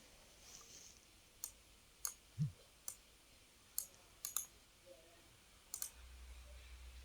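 Computer mouse clicking: about seven sharp, isolated clicks at irregular intervals, two of them close together like a double-click, with a soft low thump about two and a half seconds in.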